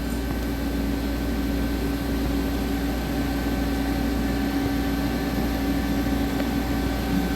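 CNC lathe taking a steady turning cut at constant surface speed: an even mechanical hum with a steady tone, with a magnet stuck on the back of the setup to damp the vibration that had made the cut sound bad.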